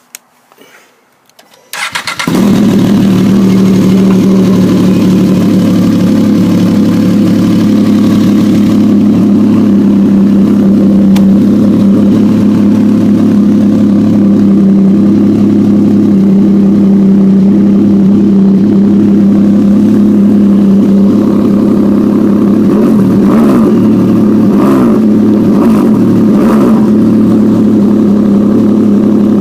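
Ski-Doo Blizzard 1200 4-TEC snowmobile's three-cylinder four-stroke engine starting about two seconds in, then running loud and steady through a Straight Line Performance aftermarket muffler.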